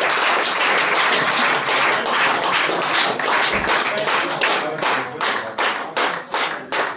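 A small crowd applauding. The scattered applause turns about halfway through into rhythmic clapping in unison, about three claps a second.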